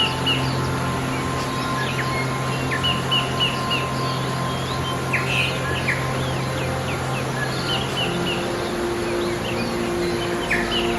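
Small birds chirping and singing in short repeated phrases over the steady rush of a stream, with soft sustained music tones underneath.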